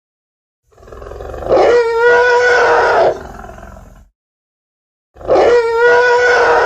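Two dinosaur roar sound effects. The first swells up over about a second, holds a steady pitched note for about a second and a half, then trails away; the second starts about five seconds in, rises quickly and is still going at the end.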